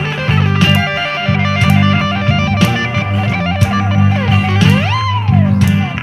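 Blues rock instrumental break: electric guitar playing a lead line with bent notes over bass guitar and drums, a sharp drum hit about once a second.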